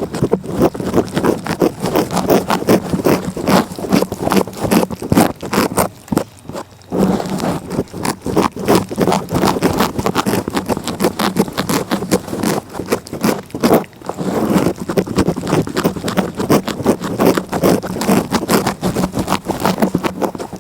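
A cat's tongue licking in quick rasping strokes, several a second, with short breaks about six and fourteen seconds in.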